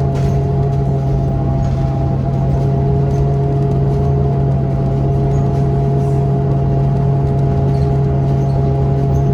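New Flyer XDE40 diesel-electric hybrid bus running: a steady low drone with a whine of several tones above it, all holding one pitch.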